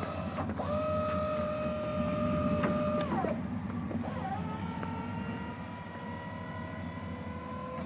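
Electric-hydraulic pump of a pickup-mounted wheel-lift tow rig whining steadily in two runs as the lift is worked by its buttons. The first run stops about three seconds in. The second starts a little lower in pitch about a second later and carries on while the wheel-lift boom swings up. A steady low rumble runs beneath.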